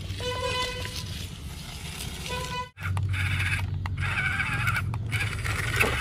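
Small electric motor running with a steady hum, with scraping and a short pitched tone heard twice in the first three seconds; the sound drops out abruptly once, near the middle.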